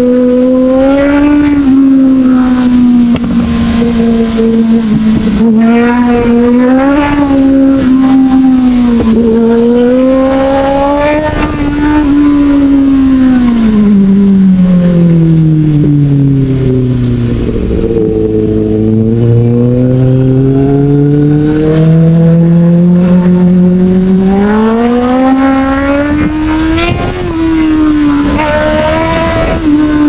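Motorcycle engine running under way at a steady high note that rises and dips slightly with the throttle. Mid-way the note falls steadily over several seconds, holds lower for a while, then climbs back up near the end.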